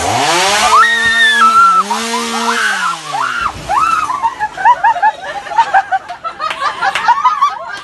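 A chainsaw engine revs up and runs at high speed for about three seconds, then cuts off abruptly. After it, young women scream and shriek over and over, mixed with laughter.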